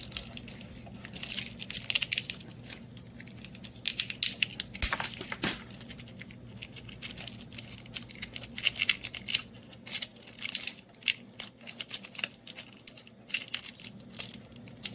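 Close-up handling noises of small parts being worked by hand: irregular light clicks, taps and crinkling of plastic and wires, over a faint steady low hum.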